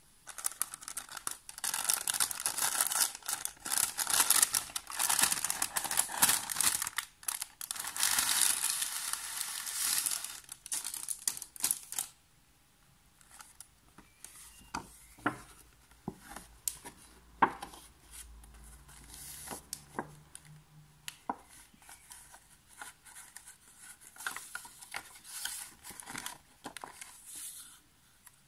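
Translucent paper envelope crinkling and rustling loudly as it is opened and handled for about twelve seconds. Then softer scattered taps and rustles as a hardcover book is handled and opened to its paper pages.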